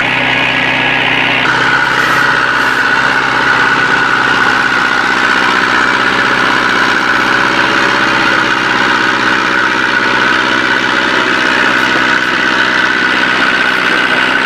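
Massey Ferguson tractor's diesel engine running steadily under load, pulling a trailer through deep mud, with a constant high whine over the engine note.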